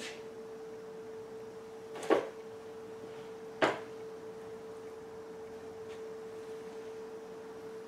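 Two sharp knocks, about two seconds in and again a second and a half later, as a wet beaver pelt is flipped and shifted on a fleshing beam, over a steady high-pitched hum.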